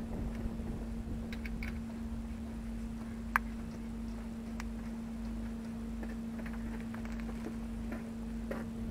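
Scattered small clicks and taps of metal tools and parts being handled during a truck wheel repair, with one sharp click about a third of the way in, over a steady low hum.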